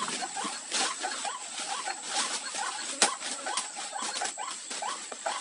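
Rapid series of short, rising animal calls, several a second, over a steady hiss, with scattered clicks and one sharp click about three seconds in.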